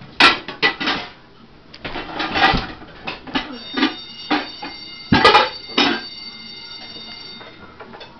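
10-inch electric school bell ringing: a steady metallic ring with several high overtones that holds for about four seconds from the middle and then stops. Irregular loud knocks and clatter come before it and during it.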